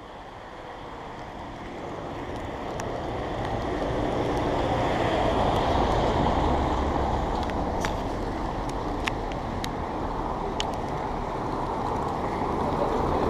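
Traffic on a wet cobbled street: a minibus drives past close by, its tyre noise on the wet stones swelling to a peak about halfway through and easing off as another car comes on. A few light clicks sound over it.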